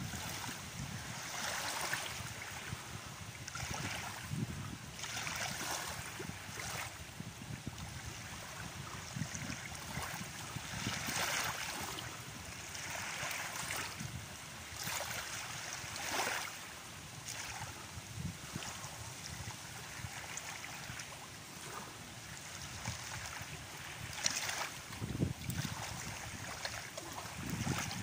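Small waves washing onto a sandy shore, each wash a rush of hissing water that swells and fades every second or two.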